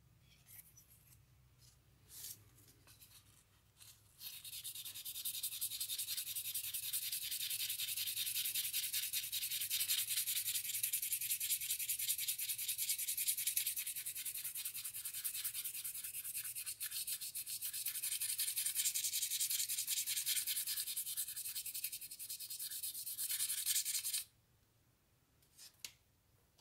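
A small metal plate from an old spirit level is hand-sanded on 1200-grit wet-and-dry paper: a rapid scratchy rubbing hiss that starts about four seconds in, runs for about twenty seconds and stops suddenly. A few light clicks and taps from handling the plate come before and after it.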